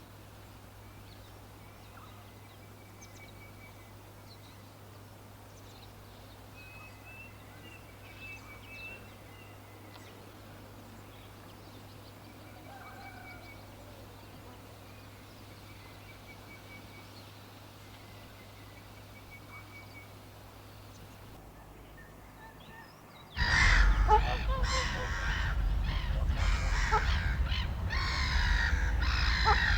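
Faint bird chirps and short trills over a steady low hum. About three-quarters of the way through, much louder harsh calls start abruptly and carry on to the end.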